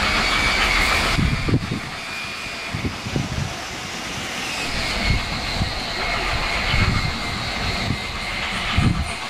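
LNER A4 Pacific steam locomotive working as it approaches, a steady rushing of exhaust and steam with a faint high tone above it, broken by irregular low thumps.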